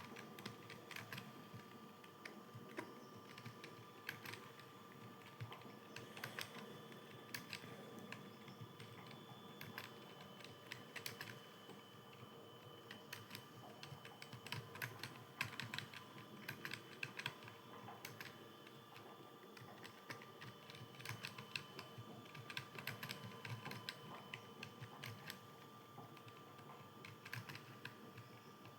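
Computer keyboard being typed on steadily, a quick, irregular stream of key clicks over a faint steady hum.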